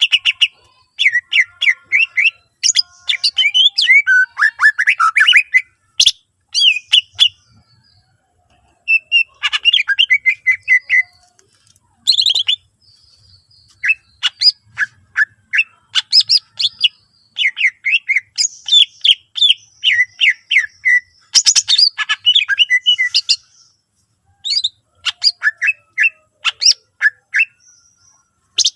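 Cucak ijo (green leafbird) singing a loud, rapid song of chirps, whistles and chattering trills in phrases broken by short pauses, a display song full of mimicked phrases of other birds.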